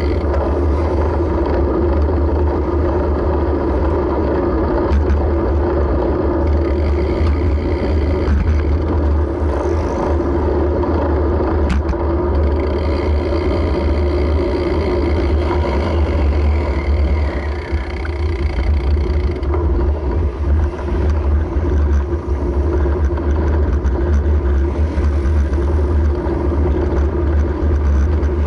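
Steady riding noise from a moving vehicle: a low rumble of frame resonance and road surface, with steady tones over it and a few faint clicks.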